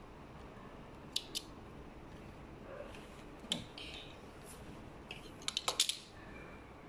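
Sharp clicks of spring thread snips trimming threads: two snips about a second in, another near the middle, then a quick run of five or six clicks near the end.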